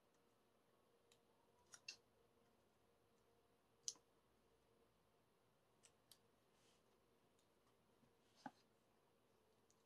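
Near silence broken by a few faint, sharp clicks and scratches as a small cutter scores the wrapping of a boxed album. The loudest click comes about four seconds in, and another comes near the end.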